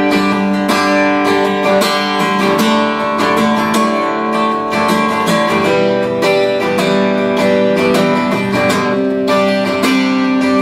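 Acoustic guitar strummed in a steady rhythm, playing the instrumental intro of a country song before the vocals come in.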